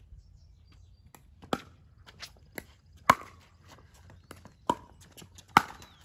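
Pickleball paddles hitting the hollow plastic ball in a rally: a string of sharp pocks at irregular gaps of half a second to a second and a half, the loudest about three seconds in and again near the end.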